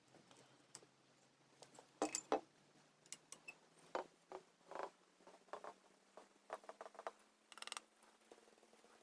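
Irregular light clicks, taps and small scraping sounds of small toy-car parts being handled and worked by hand.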